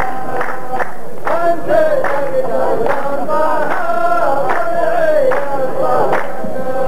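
Two rows of men in a Saudi qalta chorus chanting a poet's verse together in a long, drawn-out melodic line, to steady unison hand clapping. The clapping leads alone for about the first second before the chant comes in.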